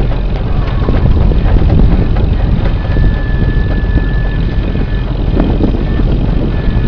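Lobster boat's engine running steadily, with a thin high whine coming in about three seconds in and again near the end.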